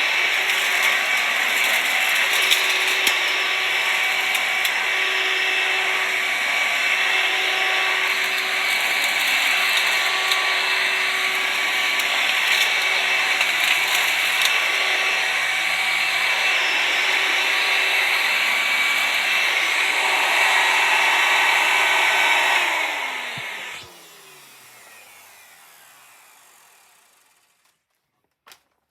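Hoover vacuum cleaner running steadily, then switched off about 23 seconds in, its motor winding down with a falling whine that fades out. A couple of clicks right at the end.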